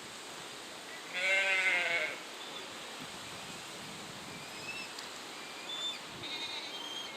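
Penguin calling in bleating, braying calls: a loud call about a second in that lasts about a second, and a shorter, fainter one near the end.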